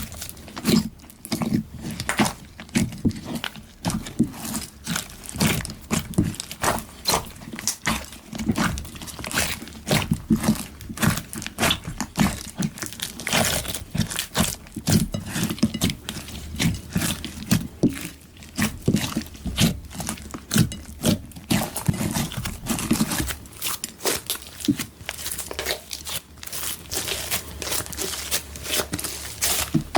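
Slime being kneaded and stretched by hand: an unbroken run of irregular wet clicks and small pops, several a second.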